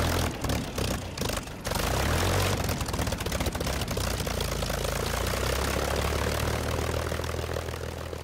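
Propeller aircraft's piston engine running, uneven for the first second and a half and then steady, fading away near the end.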